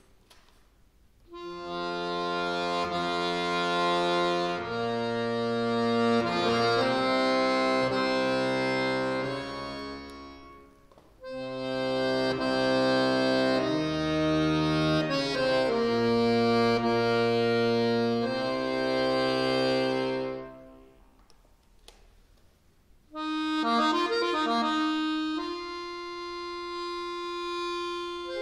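Solo chromatic button accordion playing slow, sustained chords over held bass notes, in phrases separated by brief pauses. Near the end a quicker figure of short repeated notes leads into a long held note.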